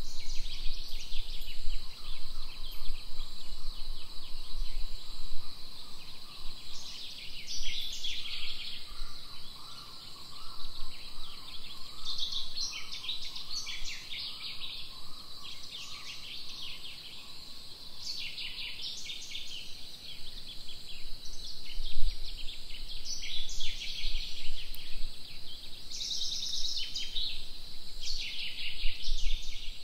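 Outdoor tropical ambience of insects: a steady high drone with repeated buzzing, trilling bursts over it. A lower pulsing call runs through the first half, and a low rumble comes and goes.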